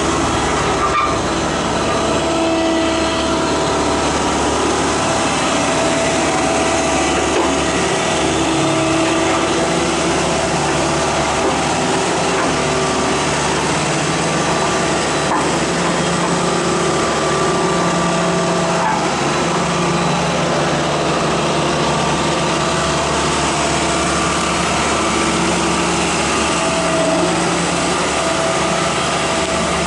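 Engines of road-works machinery running steadily, their pitch shifting up and down now and then.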